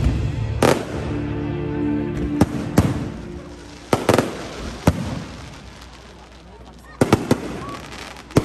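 Fireworks going off: separate loud bangs a second or so apart, then a quick run of pops starting about seven seconds in. Music plays through the first half.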